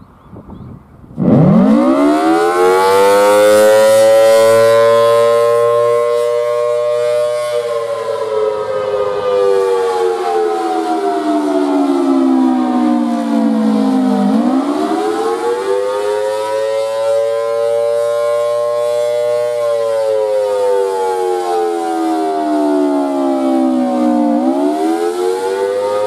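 Thunderbolt 1000T mechanical siren with a rotating horn (1950s three-phase model with a 4/5 chopper) starting from rest about a second in and winding up quickly to a loud high tone. It then wails: the pitch slides slowly down and climbs back up twice, as the motor is cut and restarted by hand.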